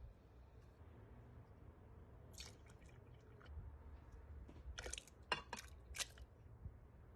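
Faint wet squishing and dripping of a creamy dessert being made, with a few short sharp clicks of utensils, most of them together around five to six seconds in.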